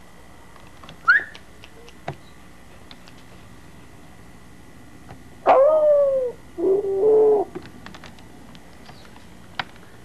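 Puppy whining: a short rising squeak about a second in, then a falling whine around the middle and a shorter, steadier whine right after.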